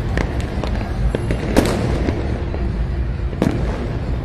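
Firecrackers and fireworks going off in a scattered series of pops and cracks over a steady low din, with two sharper bangs about one and a half and three and a half seconds in.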